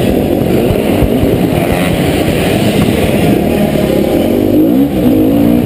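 Dirt bike engine running hard, heard close up from the bike as it races around an indoor arenacross track. The revs drop through a tight turn and climb again near the end as the rider accelerates out.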